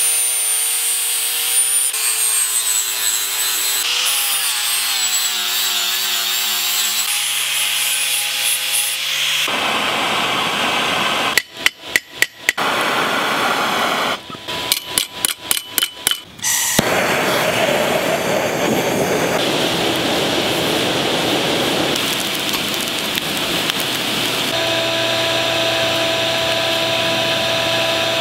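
A hand-held angle grinder grinding a forged steel spear head, its whine rising and falling in pitch as the disc bites. Then come a run of sharp knocks, a steady propane-torch hiss, and a steady hum near the end.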